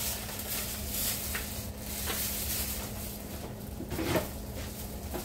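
Kitchen handling noises: a few light knocks and rustles, with a louder clunk about four seconds in, over a steady low hum.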